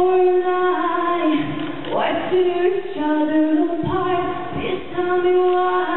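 A woman singing long held notes into a microphone in a live acoustic pop performance, backed by acoustic guitars strummed every second or two.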